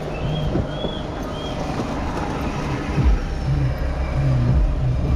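Outdoor traffic ambience: a steady low engine rumble from nearby vehicles that gets louder about three seconds in, with three short high chirps about half a second apart near the start.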